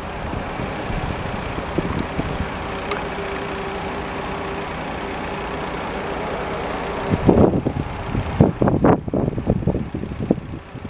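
Steady hum of a road vehicle's engine, then wind buffeting the microphone in irregular gusts from about seven seconds in.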